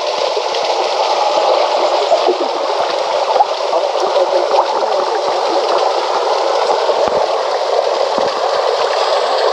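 Water running steadily from a small waterfall into a pool, a rushing, gurgling flow swollen by recent rain.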